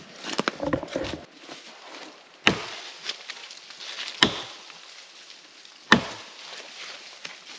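Axe chopping into a fallen birch trunk: three heavy strikes, roughly a second and a half to two seconds apart. A few lighter knocks and rustles come in the first second.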